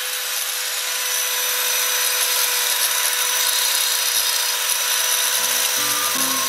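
Angle grinder running with a steady whine while its abrasive disc grinds a glazed ceramic piece, with a dry hissing scrape.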